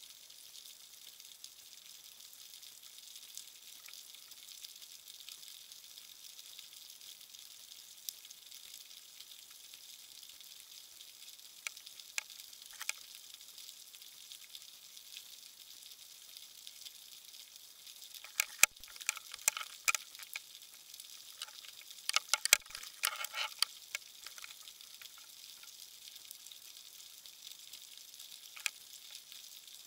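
Underwater sound picked up by a submerged camera: a steady fine crackling hiss, with a burst of sharper clicks and knocks about two-thirds of the way through.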